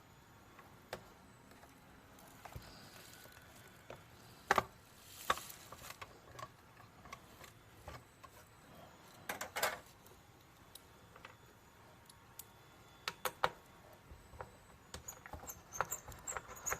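Sparse light clicks and taps of plastic and small tools handled while working on a PlayStation 5 console, with quiet stretches between and a quick run of clicks near the end.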